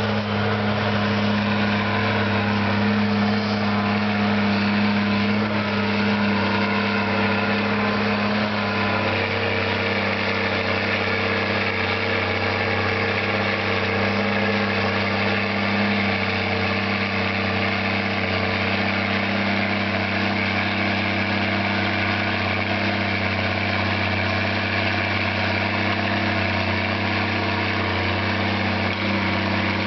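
Case IH MX240 Magnum tractor's six-cylinder diesel engine running steadily, a low, even drone.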